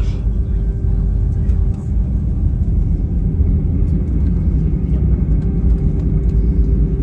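Airliner cabin noise as the plane rolls along the ground after landing: a steady low rumble with a constant hum over it.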